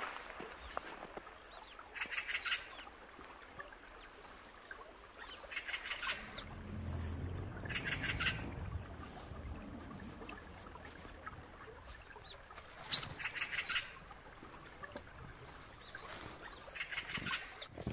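A bird giving short, harsh rattling calls, five of them at irregular intervals, over faint outdoor background with a low rumble in the middle.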